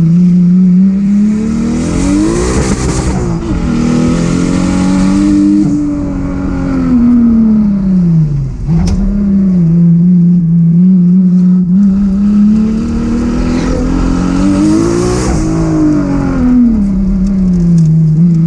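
Toyota 7M-GTE turbocharged inline-six in a race-prepared VK Commodore, heard from inside the cabin under hard driving. The engine note climbs a couple of seconds in, falls away by about eight seconds, holds steady, then climbs again near fifteen seconds before easing off.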